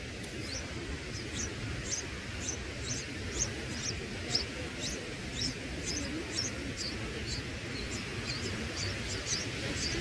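Red-whiskered bulbul nestlings begging: a run of short, high, thin chirps, two or three a second, over a steady low rumble.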